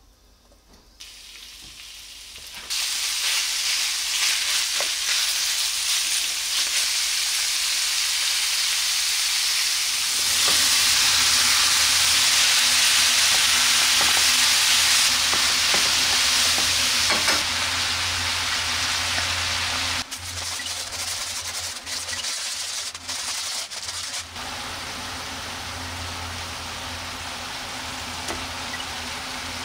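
Sliced pork and then bitter melon sizzling in hot oil in a frying pan, stirred with a wooden spatula. The sizzling starts about a second in, grows louder around ten seconds in, and drops back to a lower sizzle for the last several seconds.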